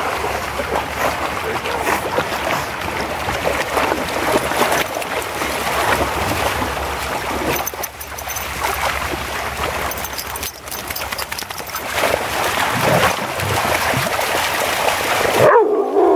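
Water splashing and churning as several dogs swim and wade through a shallow, running river, the stream rushing over stones; the splashing stops abruptly about half a second before the end.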